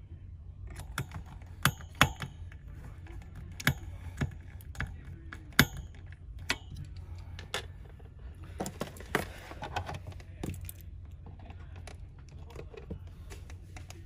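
Sharp, irregular clicks and taps around a desktop PC's CPU cooler fan as it is handled, over a steady low hum. The clicks come singly for the first several seconds, then bunch together in a quick cluster around the middle.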